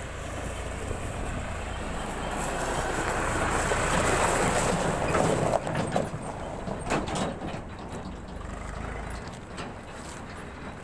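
A tractor engine runs as it approaches and passes close by. It grows louder to a peak about four to five seconds in, then fades, with a few knocks along the way.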